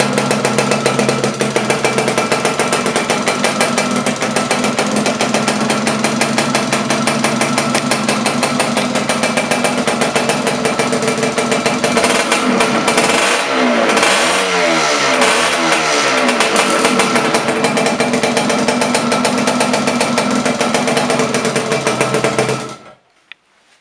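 Freshly rebuilt Zündapp KS 125 water-cooled two-stroke single in a Laverda LB 125 motorcycle, running on one of its first starts after the rebuild. It runs steadily, is revved up and down several times about halfway through, settles again, then is shut off near the end.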